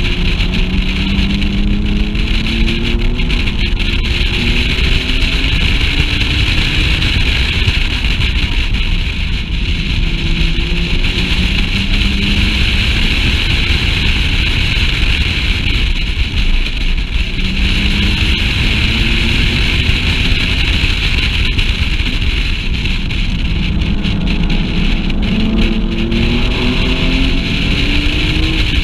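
Sports car engine heard from inside the car on a race circuit, rising in pitch again and again as it accelerates through the gears, with easier stretches between pulls. A heavy rumble of wind buffeting the unshielded camera microphone runs under it.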